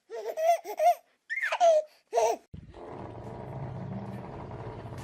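A baby laughing and squealing in three short high-pitched bursts, one with a falling squeal. About two and a half seconds in it cuts to a steady low hum with background noise.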